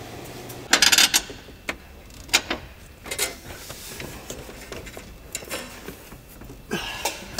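Metal socket wrench and nuts clinking and clicking as the brake booster's firewall mounting nuts are undone under the dash: a quick run of clicks about a second in, then scattered single clinks.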